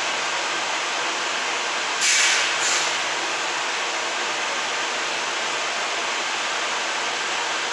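R46 subway train standing at an elevated station platform, giving off a steady rushing hum while idling. About two seconds in come two short, sharp hisses of air, half a second apart.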